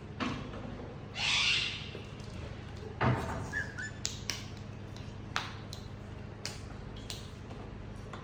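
A cat moving about inside a car: a short hissing rush of noise about a second in, a thump, then a scatter of light clicks and taps, over a steady low hum.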